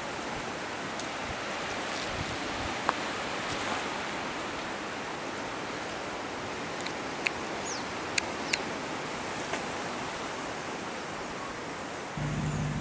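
Steady outdoor hiss with a few sharp clicks and some short high chirps; a low steady hum comes in near the end.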